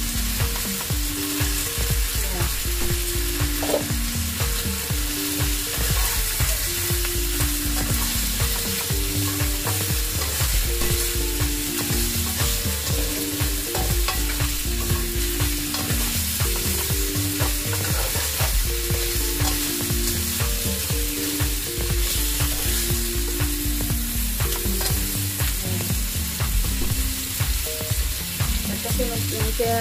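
Chicken wings and carrot chunks sizzling in hot oil in a stainless steel frying pan, with a spatula stirring and scraping against the pan. A quiet background tune of short stepping notes plays underneath.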